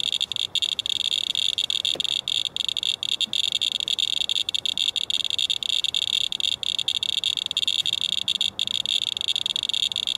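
Radalert Inspector Geiger counter clicking so rapidly that the counts run together into a dense, high-pitched crackling chirr with brief irregular gaps. It is the sign of a strong count from a rain-soaked wipe sample reading about 0.9 mR/hr, roughly 90 times background.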